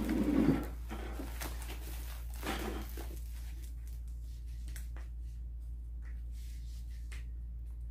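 Plastic bubble wrap around a boxed vanity mirror rustling as it is handled, a short burst at the start and another about two and a half seconds in, then a few faint taps over a low steady hum.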